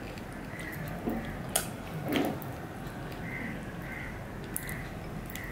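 Soft eating sounds of fingers picking jujube chutney out of a small ceramic bowl, with a sharp click about a second and a half in and a louder mouth sound just after. Behind them an animal gives short high calls over and over, roughly one or two a second.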